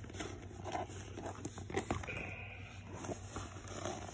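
Handling noise from rummaging in a handbag: scattered small clicks, taps and rustles as items are moved about, over a low steady hum.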